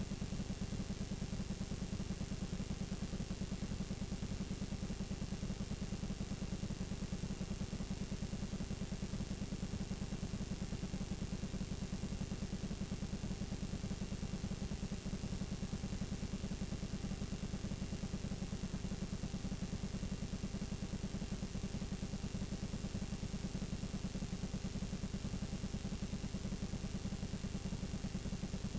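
Steady low buzz with hiss from a blank, unrecorded stretch of videotape, with no programme sound.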